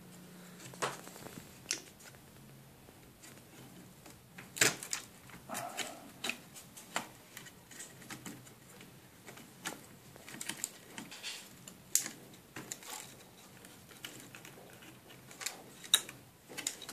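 Irregular small clicks and taps of a circuit board and plastic casing parts being worked loose and lifted out of a BMW satellite navigation unit by hand. The sharpest clicks come about a third of the way in, about two thirds in and near the end, over a faint low hum at first.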